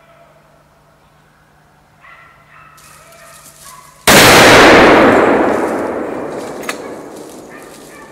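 A single gunshot at a running wild boar about four seconds in. It is very loud and echoes away slowly over several seconds, and a sharp click comes a couple of seconds later.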